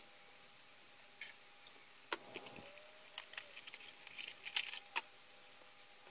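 New Oregon saw chain being pulled out of its packaging: a run of light metallic clicks and jingles from the chain links, starting about two seconds in and loudest near the end.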